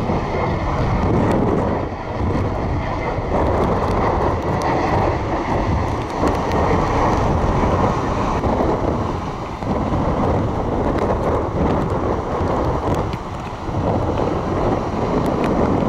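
Wind blowing hard across the microphone in gusts, with ocean surf beneath.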